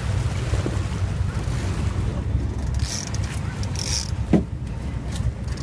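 Low, steady rumble of wind on the microphone and a boat running on open water, with short splashy hisses from the sea and one brief rising squeak about four seconds in.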